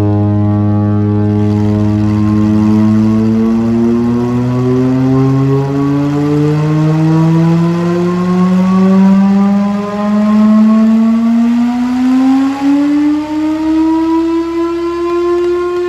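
Mechanical siren on a vintage fire truck winding up, its wail rising slowly and steadily in pitch and levelling off near the end.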